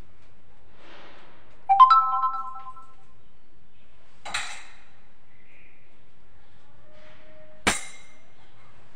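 Electronic notification chime, a quick run of a few stacked notes about two seconds in, the loudest sound here. A brief rustle follows, then a sharp clink near the end.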